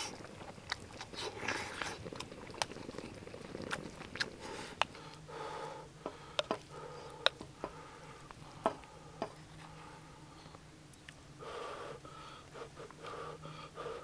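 A person chewing braised kimchi and pork belly, with wet mouth sounds and scattered sharp clicks and taps. A low steady hum comes in about five seconds in.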